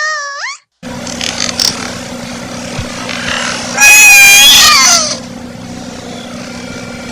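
A loud, wavering animal-like cry lasting about a second, near the middle, over a steady hum and hiss. A short gliding squeal cuts off just before it starts.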